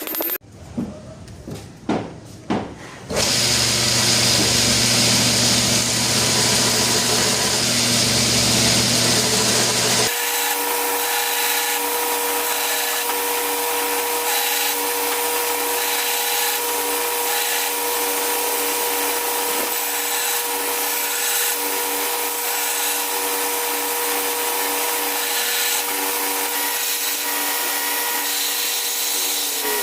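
A few sharp knocks, then a power tool running steadily. About ten seconds in the sound changes abruptly to another steady machine noise with a constant whine.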